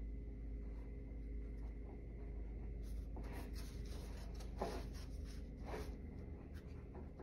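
Faint scratchy rubbing and handling noises from a hand on a hollow wooden mast, starting about three seconds in, over a steady low hum.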